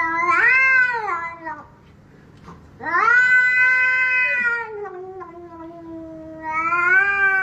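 A cat yowling: three long, drawn-out calls, each rising and then falling in pitch, the middle one lasting about three seconds.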